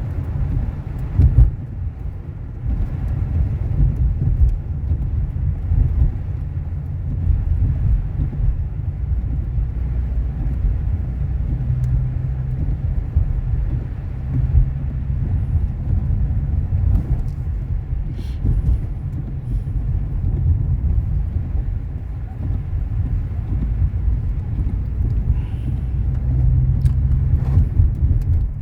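Car cabin noise while driving: a steady low rumble from the engine and tyres on the road, with a few faint clicks.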